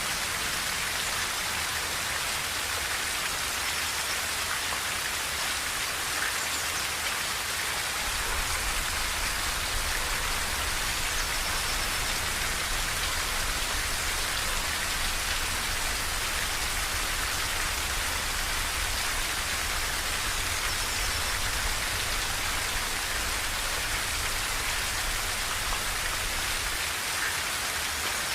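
Steady rain falling on a tin roof, a dense even patter with no let-up. A low rumble sits underneath and grows stronger about eight seconds in.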